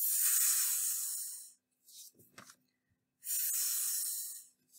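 A woman voicing the phonics sound 'fff' twice, each a long breathy hiss lasting about a second, for the letters f and then ff.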